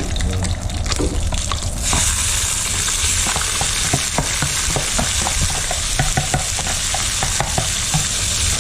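Food sizzling in hot oil in a pan, the sizzle starting about two seconds in, with a utensil clicking and scraping against the pan as the food is stirred.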